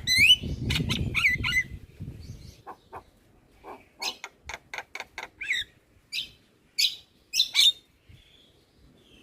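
Javan myna (jalak kebo) calling in a rapid, chattering series of sharp squawks, clicks and short whistles, densest in the first two seconds over a low rumbling noise, then in short separated calls, tailing off near the end.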